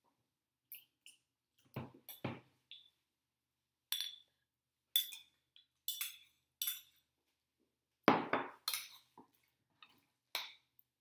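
Metal spoon clinking and knocking against a ceramic mixing bowl as guacamole is stirred, in a series of short separate clinks with a heavier cluster about eight seconds in.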